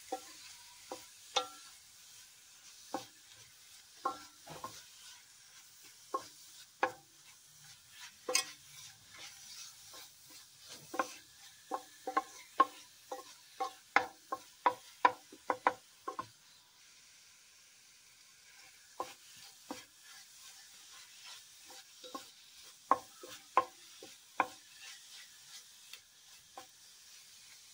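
A spoon stirring fried spinach and spices in an aluminium pot, knocking and scraping against the pot's sides in irregular taps over a faint sizzle of frying. The taps come thick and fast in the middle, pause for a few seconds, then start again.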